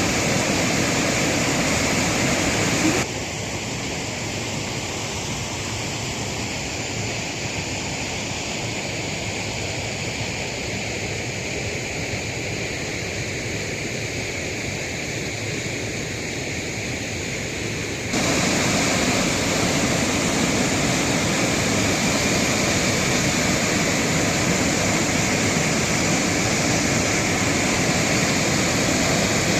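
Steady rushing of falling water from a waterfall. The noise drops abruptly to a lower level about three seconds in and jumps back up about eighteen seconds in.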